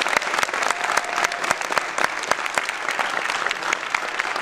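Audience and cast applauding: many hands clapping in a dense, steady patter.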